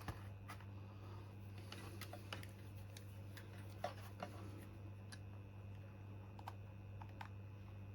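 A few faint, scattered clicks and taps from a multimeter and its probes being handled and placed on a lithium battery cell, over a steady low electrical hum.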